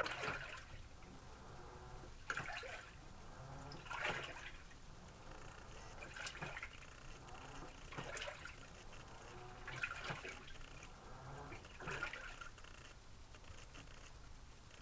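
Washing machine agitating a motorcycle helmet in water, the water swishing in surges about every two seconds as the wash action reverses, over a low motor hum.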